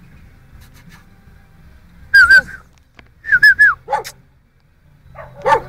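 A person whistling in short, wavering high notes, answered by a small dog barking about four seconds in and again near the end.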